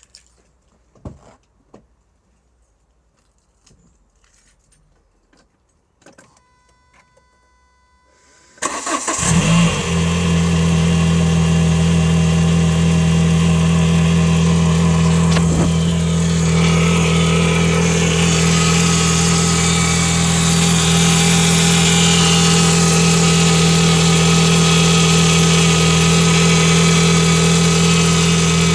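Renault Clio 182's 2.0-litre four-cylinder engine started after a few faint clicks, catching about eight and a half seconds in and then idling with a steady drone. The noise on starting is one the owner suspects is a bad water pump.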